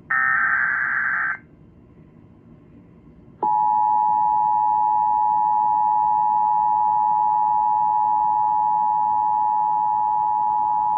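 An Emergency Alert System SAME header burst, a raspy digital data squeal about a second long. About two seconds later the EAS two-tone attention signal (853 and 960 Hz) starts and holds steady. Together they open an EAS relay of a National Weather Service severe thunderstorm warning.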